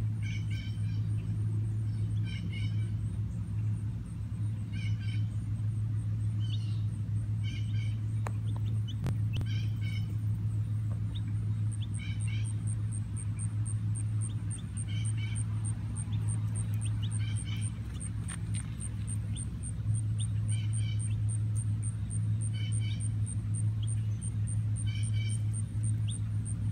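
A lone baby chick peeping in short clusters of high calls, repeated every one to two seconds, over a steady low hum. A fast, high, even pulsing joins about halfway through.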